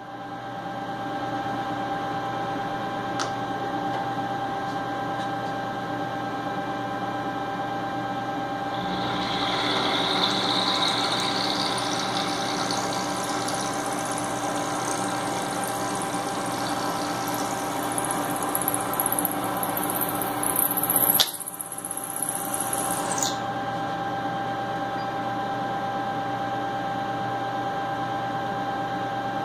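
Milling machine spindle running with a steady machine hum. About a third of the way in, an end mill cutting into a metal jaw block adds a high hiss and whine. It cuts off suddenly about two-thirds of the way through, leaving only the steady hum.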